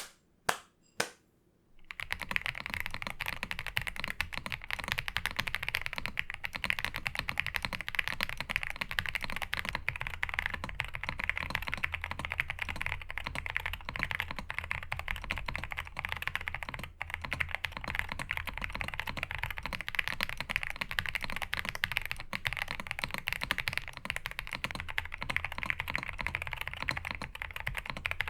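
Royal Kludge R75 Pro mechanical keyboard being typed on: a few single keystrokes, then fast, continuous typing from about two seconds in.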